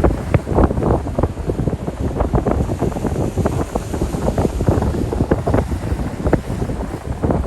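Strong wind buffeting the microphone in uneven gusts, with lake waves washing underneath.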